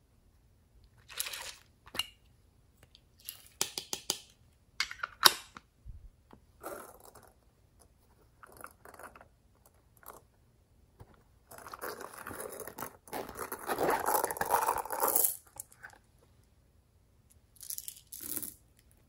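Hands handling small plastic toy containers: sharp plastic clicks and crackles in the first few seconds, then a longer crinkly, crunching stretch in the middle and a couple of short crackles near the end.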